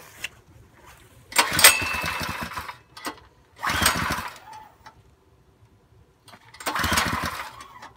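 Harbor Freight Predator 6.5 hp single-cylinder small engine being pull-started on its recoil starter: three pulls, each turning it over for a second or so, with quiet gaps between in which it does not keep running.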